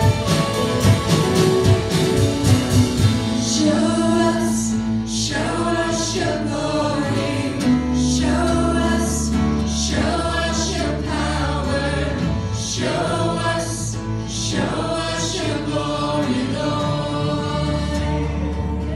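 Live worship band of guitars, drums and keyboard accompanying lead and backing singers in a contemporary gospel song. A steady drumbeat runs for the first few seconds and drops out about three and a half seconds in, leaving held chords under the singing.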